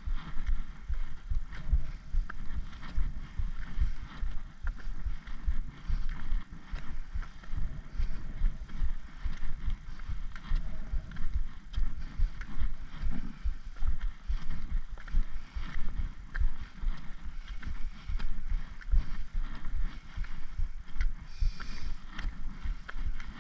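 Trekking-pole tips and footsteps tapping on a tarmac lane as a hiker walks, with repeated irregular clicks over a low rumble of wind buffeting the microphone.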